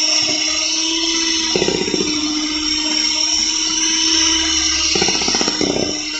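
A small electric motor whirring steadily, with stretches of rapid rattling about one and a half seconds in and again about five seconds in.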